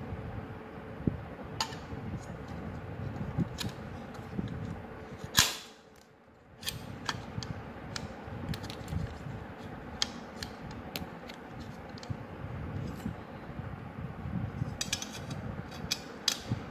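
Small metal parts being handled and fitted: scattered light clicks and scrapes of an aluminium bracket and screws against a motor assembly, over a steady background hiss that drops out briefly about six seconds in.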